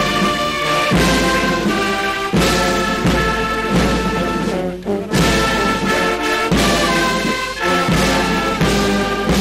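Military brass band playing a national anthem in slow, sustained chords that change about once a second.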